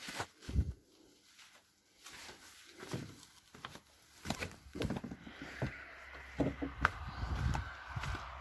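Scattered clicks, knocks and low thumps of someone moving about and handling small hardware, with a low steady rumble coming in about halfway through.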